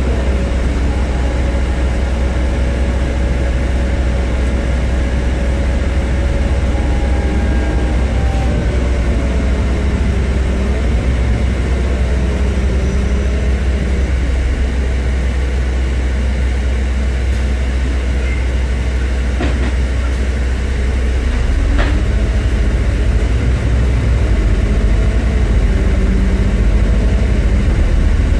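Interior of a Scania E400 MMC biogas double-decker bus on the move: a deep, steady engine and drivetrain rumble with a whine that rises and falls as the bus pulls away and slows, and an occasional light rattle from the fittings. It gets somewhat louder near the end as the bus picks up speed.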